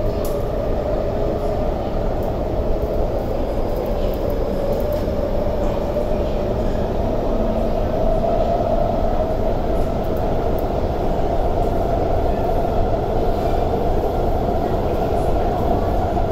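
Inside a moving MTR SP1900 (IKK) electric train in a tunnel: steady rumble of wheels on rail and running noise. A humming tone through it rises slightly in pitch.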